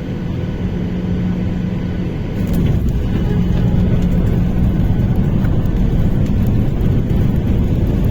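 Airliner cabin noise: a steady rumble of jet engines and airflow with a faint hum, heard from inside the plane on approach to land. It grows louder about two and a half seconds in.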